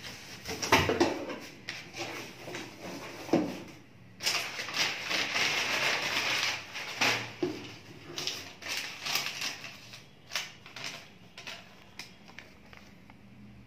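Crumpled brown kraft packing paper crackling and rustling as it is pulled out of a cardboard shipping box, with light knocks of the cardboard flaps. Near the end it gives way to softer rustling as a paper invoice is unfolded.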